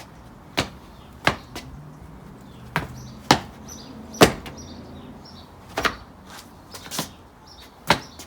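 Feet landing hard on the floor during a Xing Yi chicken form, about eight sharp thuds at irregular intervals, the body's weight dropping onto the floor in the style's "thunder sound".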